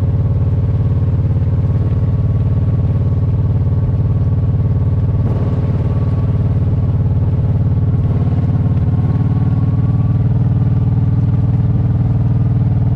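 Kawasaki Brute Force 750 ATV's V-twin engine running loud and steady under load as it drives through shallow water towing a boat on a rope.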